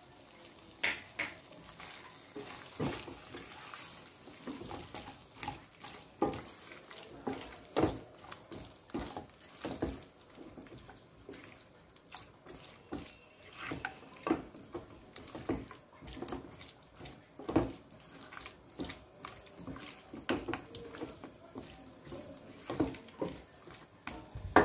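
Silicone spatula stirring and scraping chunks of pepper chicken in thick masala around a nonstick kadai, in irregular soft scrapes and knocks.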